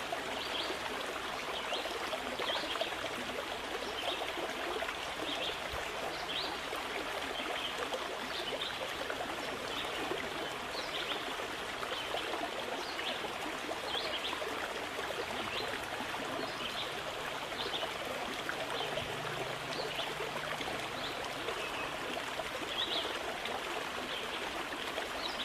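Steady flowing water of a stream, an even running rush with small high blips about once a second.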